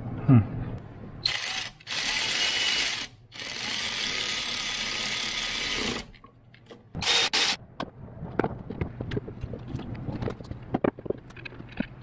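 Cordless electric ratchet whirring in three bursts, the longest about three seconds, then one short burst, followed by scattered clicks and taps of tools and parts being handled. A brief loud sound with a falling pitch comes just at the start.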